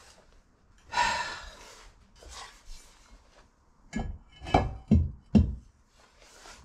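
Metal being handled at a drill press: a short metallic rattle about a second in, then a few sharp knocks as the rectangular steel tube is shifted in the steel drill-press vise.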